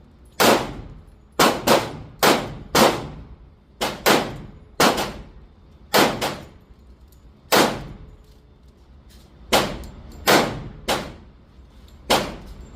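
Handgun shots, a Glock 21 in .45 ACP, fired at an uneven pace while zeroing a red-dot sight: about fifteen shots, some in quick pairs, others up to two seconds apart, each ringing briefly.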